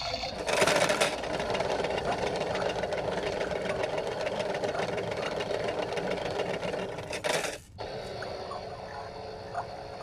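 Kid Connection toy washing machine running its hand-wash cycle: a small motor whirring steadily as the plastic drum turns with coloured balls inside. The sound swells briefly about half a second in and again around seven seconds, then carries on a little quieter.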